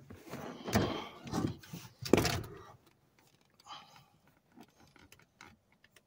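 Handling noise from a Volvo XC90's middle second-row seat being lifted: a few rustling, scraping knocks in the first two and a half seconds, then faint light clicks.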